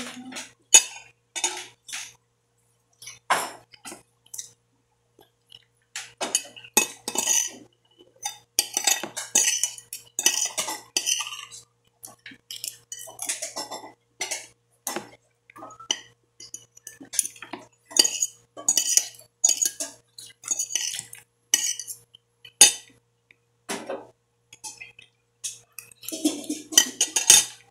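Metal spoon and fork scraping and clinking against a plate in short, irregular bursts while someone eats.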